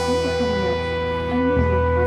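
Background music: a wavering melody over steady held notes, with a change in the low note about a second and a half in.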